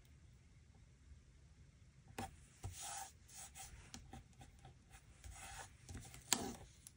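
Quiet handling of paper and planner pages: soft rubbing and rustling with a few light taps. It begins about two seconds in, and the loudest rustle comes near the end.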